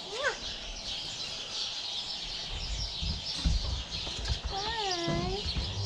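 Goat kids bleating: one short rising bleat at the start and a longer bleat that rises and falls about four and a half seconds in, over steady chirping of many small birds. A few low bumps and rustles in the middle.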